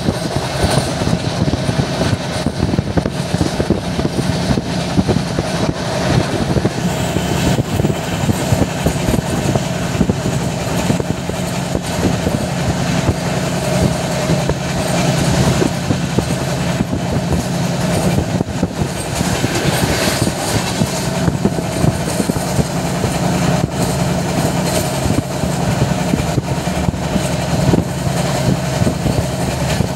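Express passenger train running at speed, heard from inside a moving coach: the steady noise of the wheels on the rails.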